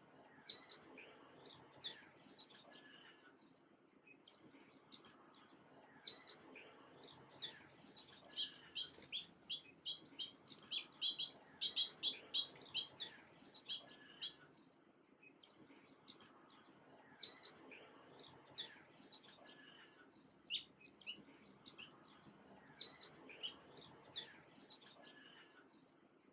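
Small songbirds chirping and tweeting in short, high calls, with a fast run of louder chirps, about three a second, in the middle.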